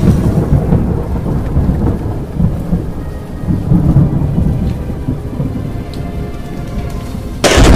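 Thunder sound effect from a logo intro: a low rolling rumble that slowly dies away, then a sudden loud crash near the end.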